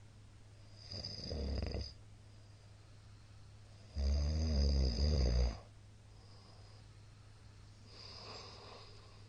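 A middle-aged man snoring loudly in his sleep. Three snores: one about a second in, the loudest at about four seconds, and a fainter one near the end. A steady low hum runs underneath.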